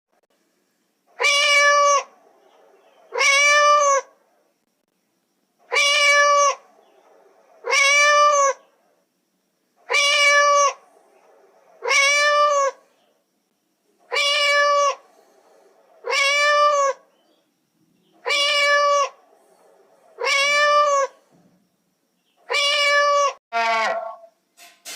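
Domestic cat meowing over and over, each meow just under a second long and rising then falling in pitch. The meows come in pairs about every four seconds, with a shorter call near the end.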